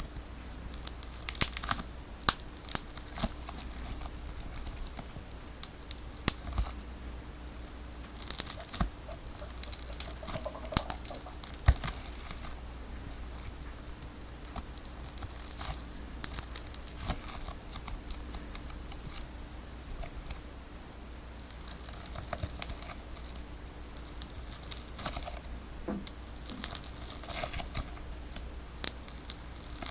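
Sticky tape being cut and peeled off a tape ball: irregular crinkling, tearing and sharp crackling of the tape layers.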